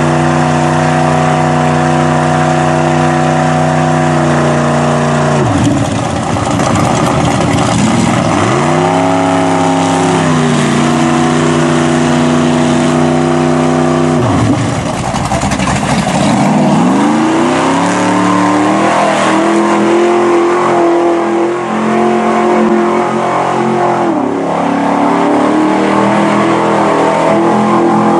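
Pickup truck engines running hard in a mud pit. The engine note holds steady at high revs, drops and climbs again several times as the wheels spin in the mud.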